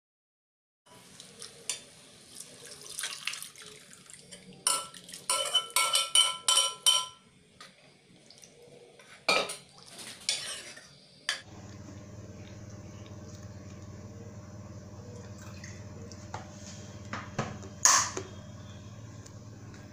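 Steel ladle clinking and scraping against a steel kadhai as thick rajma gravy is stirred, in a quick run of strikes for a few seconds. After a cut there is a steady low hum, and a single sharp metal clink near the end.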